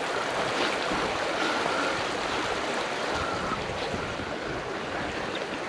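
Small river's water flowing past, a steady rushing noise.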